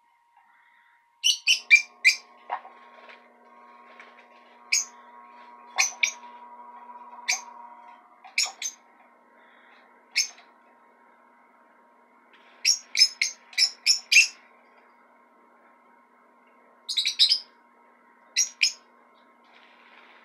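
Lovebird chirping: short, sharp, high-pitched chirps, some single and some in quick runs of three or four.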